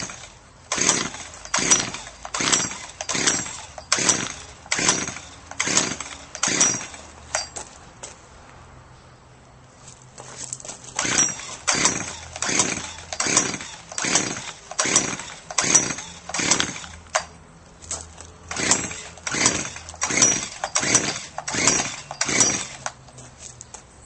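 Craftsman edger's small engine running unevenly on a cold start, surging up and down about once a second. It sags to a low idle twice, for a few seconds about a third of the way in and briefly about two-thirds in, then picks up and surges again.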